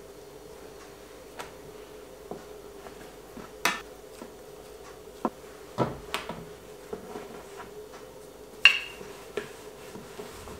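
Scattered knocks, taps and clicks of kitchen work at a countertop as pasta dough is cut and handled, a dozen or so short strikes with three louder ones, the last ringing briefly. A faint steady hum lies underneath.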